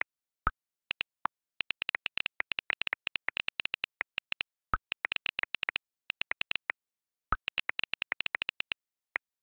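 iPhone on-screen keyboard clicking in quick runs of keystrokes as messages are typed. Three separate fuller pops, about half a second, nearly five seconds and about seven seconds in, are WhatsApp's sent-message sound.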